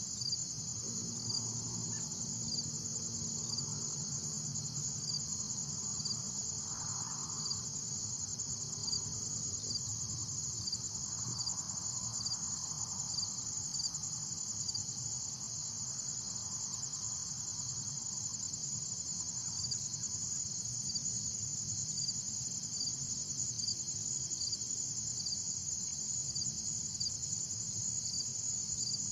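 Steady high-pitched insect chorus, with a faint pulse repeating about once a second.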